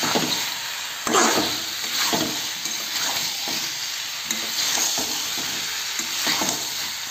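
Parboiled new potatoes being stir-fried in sizzling spice paste in a metal kadai, a spatula scraping and turning them about once a second over a steady sizzle of hot oil: the kosha stage of frying the potatoes with the masala for aloo dum.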